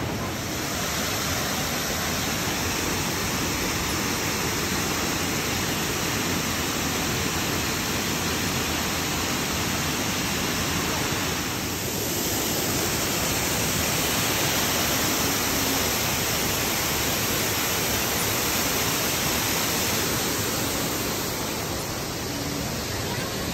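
Steady rush of a waterfall cascading over rock into a pool, an even roar of falling water.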